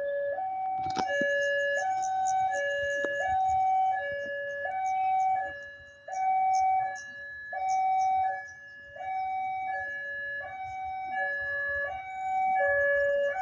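Railway level-crossing warning alarm sounding a steady two-tone ding-dong, a lower and a higher note alternating about every three-quarters of a second, which warns that a train is approaching.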